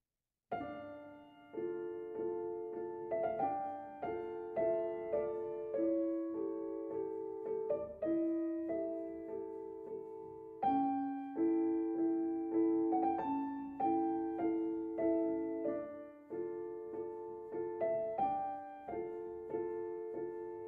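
Gentle piano music: single notes and chords struck at a slow pace, each ringing out and fading, starting about half a second in.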